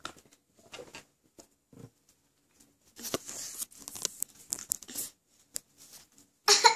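Handling noise from a phone camera: rustling and crackling rubs on the microphone for a couple of seconds in the middle, with scattered small clicks and taps.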